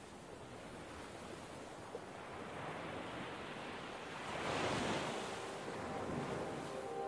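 Sea waves washing in, as a steady rushing with one louder surge of a breaking wave about four and a half seconds in.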